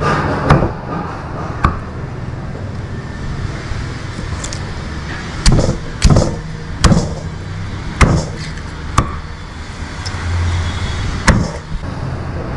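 A steel cleaver chopping a whole boiled chicken on a wooden chopping block. About eight sharp chops come at uneven intervals, with a pause of about three seconds after the first two, over a steady background noise.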